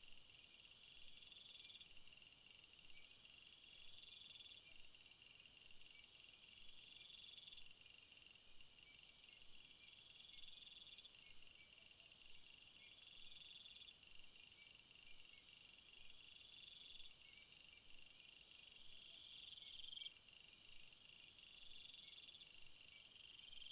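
Faint insect chorus: several high-pitched calls overlap and repeat at steady intervals, one about every two and a half seconds and another in short, even pulses about twice a second.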